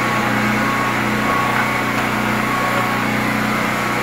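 A steady mechanical drone of a motor running, with a constant low hum and a few steady higher tones that do not change.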